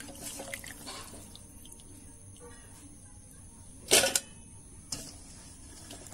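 Hands swishing and splashing chopped food in water in a steel colander. About four seconds in comes one loud, short clatter of pieces landing in a stainless steel bowl, with a lighter tap about a second later.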